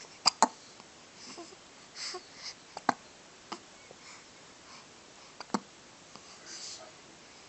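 Hiccups: short, sharp hiccups a second or two apart, with a quick double hiccup near the start and fainter breathy sounds between them.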